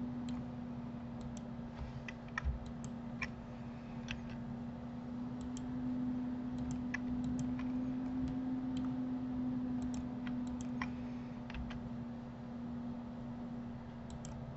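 Irregular clicks of a computer mouse and keyboard, a few at a time, over a steady low hum.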